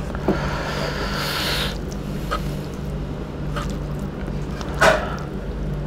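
Fingers mixing and squeezing rice with chicken-innard curry by hand: soft wet squishing with a few small clicks and a sharper squelch about five seconds in. A hissing rush of noise fills the first second and a half, over a steady low hum.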